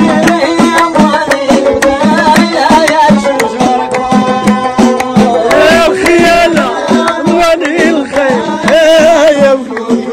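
Moroccan folk ensemble playing: violin and long-necked loutar lutes over a steady beat of hand drums, with hand clapping. The melody carries wavering ornaments, strongest about six and nine seconds in.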